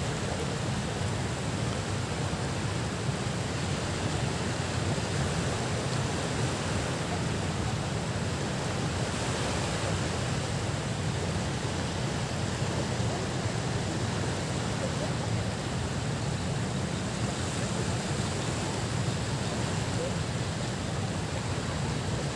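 Steady seashore ambience: an even rush of wind and small waves at the shoreline, unchanging throughout.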